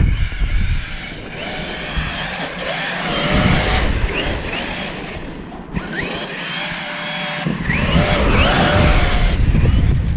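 Brushless electric motors of RC monster trucks whining up and down in pitch as the throttle is blipped, over a low rumble of wind on the microphone.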